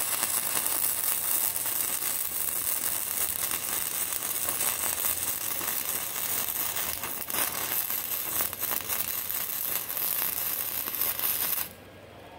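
Stick-welding arc crackling steadily as a bead is laid on a cast iron engine block, then cutting off about eleven and a half seconds in when the arc is broken.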